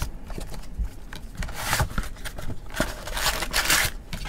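Cardboard box and foil-wrapped trading-card packs rubbing and scraping as the packs are slid out of the box, with a few small knocks. There are two louder scratchy rustles, about a second and a half in and again near the end.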